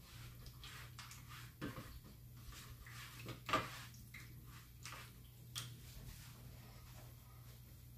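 A few light knocks and clicks of small objects being handled and set down, the loudest about three and a half seconds in, over a steady low hum.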